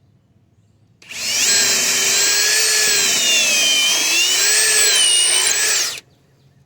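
Ridgid Octane cordless drill boring a pilot hole into hard cedar with a roughly 1/4-inch bit. The motor whine starts about a second in and dips in pitch as the bit loads up in the wood, most of all near the middle. It stops abruptly about a second before the end.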